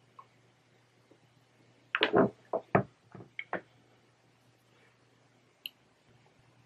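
Glass bowl set down on a table: a short run of knocks and clunks between about two and three and a half seconds in, the loudest two near the start of the run.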